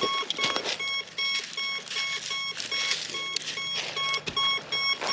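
Metal detector giving short, same-pitched beeps about twice a second, sounding off on everything: false signals that the detectorist puts down to the battery dying. A rustling noise sits between the beeps.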